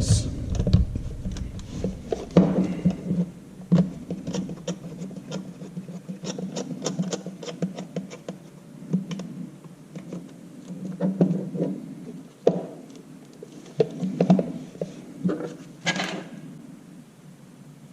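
Handling noises from setting a camcorder on a small plastic motorized pan-tilt head: irregular clicks, taps and rubbing, with a low hum that comes and goes.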